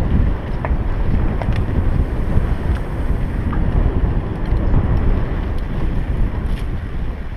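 Wind buffeting a helmet-mounted action camera's microphone during a downhill mountain-bike descent on a dirt trail, a steady low rumble with faint ticks and rattles from the bike.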